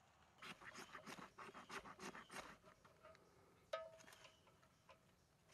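Quick run of scraping, rustling strokes as dry leaves and kindling are handled in a metal fire ring, then a single sharp clink with a short ring.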